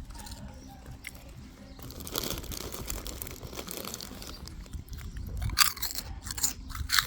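Close crunching and chewing of crisp food, growing denser about two seconds in, with several loud sharp crunches near the end.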